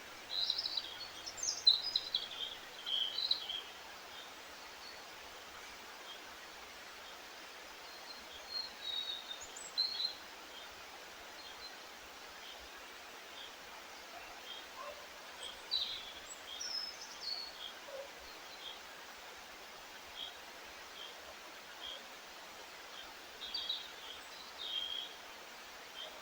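Wild songbirds singing in short bursts of song, four of them spaced through the stretch, with single short chirps repeating between them. Underneath runs a steady outdoor hiss.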